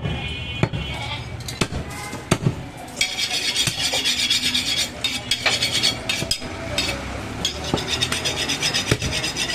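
Heavy butcher's cleaver chopping mutton on a wooden log chopping block: a run of sharp chops and knocks. From about three seconds in, a steady rasping, scraping sound joins them.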